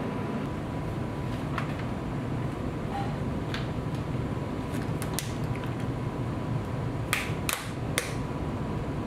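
Steady background hum of a room, with a faint thin constant tone, and a scatter of small sharp clicks and ticks, several close together near the end.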